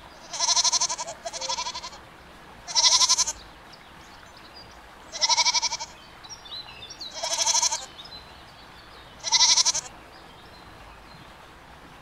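Goats bleating: six wavering calls, each under a second long, coming every second or two.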